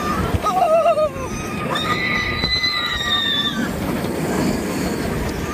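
Inverted roller coaster train running through the course, a steady loud roar of wheels on track and rushing wind. Riders scream over it: a short wavering scream about half a second in, then a longer, steadier high scream from about two seconds in.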